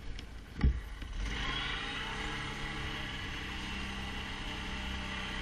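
A sharp knock, then an ATV engine running steadily.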